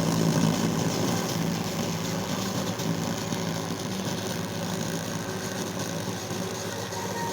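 Subwoofer playing a sustained low bass note, heard as a steady hum that slowly fades.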